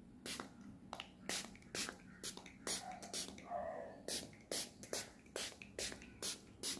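Small pump-spray bottle of rose water spritzing a fine mist, over and over: short hissing puffs, about two to three a second.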